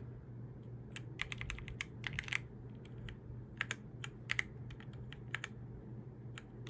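Keys on a Yunzii YZ87 mechanical keyboard clicking as they are pressed in quick irregular clusters, cycling through its RGB lighting modes.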